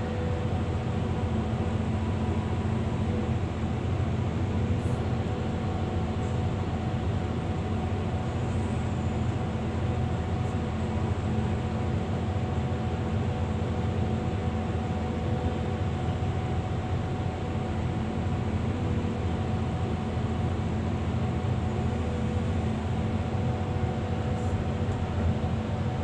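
Hydraulic excavator's diesel engine running steadily, heard from inside the cab: an even drone with a few held tones that does not change.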